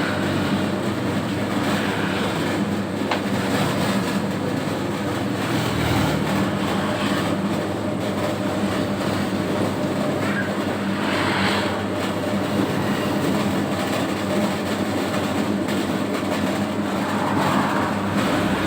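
Homemade 3 kg dough mixer running steadily, its motor and drive making a constant mechanical hum.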